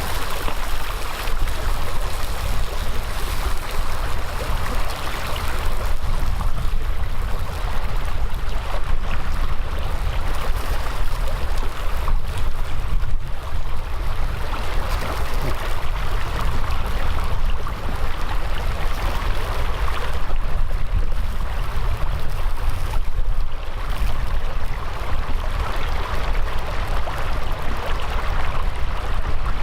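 Mountain stream rushing steadily, with a deep rumble underneath.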